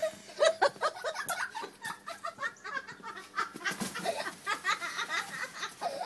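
People laughing hard in short, repeated bursts of giggling and snickering.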